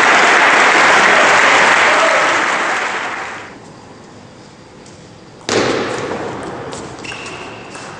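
Applause after a table tennis point, dying away after about three and a half seconds. About five and a half seconds in there is a sudden loud thud, followed by the light clicks of a table tennis ball in play.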